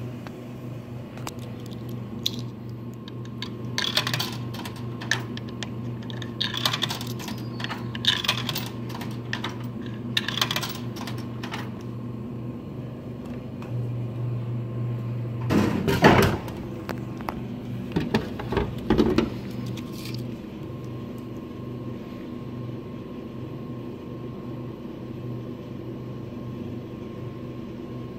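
Dasani vending machine humming steadily, with a run of clicks and knocks, a stronger hum for a couple of seconds, then a loud clatter about sixteen seconds in and a few more knocks after it.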